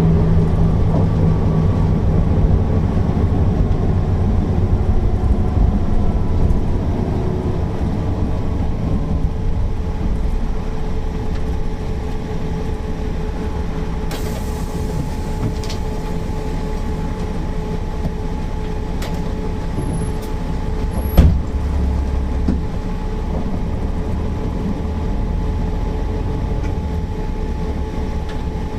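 Mercedes-Benz O408 bus's six-cylinder diesel running with a low rumble and a steady whine. Its loudness eases over the first several seconds, then holds steady. A single sharp knock comes about 21 seconds in.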